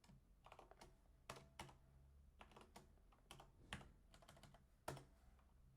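Faint typing on a computer keyboard: irregular key clicks with short pauses between them, a couple of louder keystrokes along the way.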